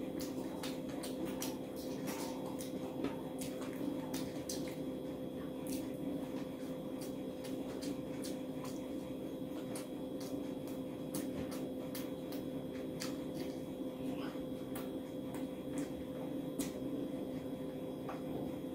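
Close-miked eating with the hand: chewing, lip smacks and wet mouth clicks, irregular and many, with fingers squishing rice, over a steady low hum.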